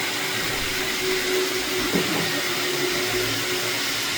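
Kato N scale model train running along the layout's track, a low rumble that swells and fades over a steady background hiss, with a single click about two seconds in.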